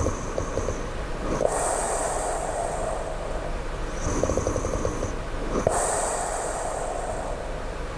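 A sleeping person snoring low, two slow breath cycles about four seconds apart: each a rattling snore followed by a hissing breath.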